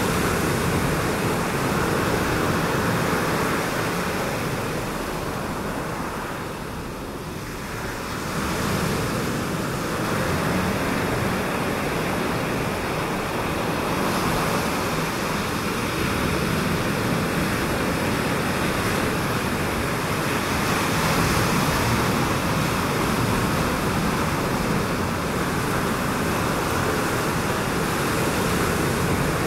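Ocean surf: waves breaking over a shallow reef, a steady rushing wash that eases briefly about seven seconds in and then builds again.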